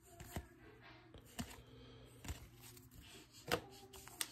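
Paper baseball cards being flipped through by hand, one behind another: about four faint, short clicks and slides spread out over a few seconds.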